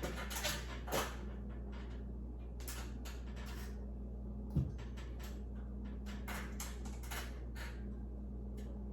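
Hands handling light-fixture wiring parts and wire connectors: scattered small clicks and rustles, with one low thump about four and a half seconds in, over a steady low hum.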